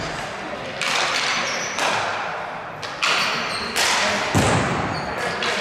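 Ball hockey play echoing in an indoor arena: sticks and the ball knocking against each other and the boards, about five sharp hits over a few seconds, with the heaviest, deepest thud about four seconds in.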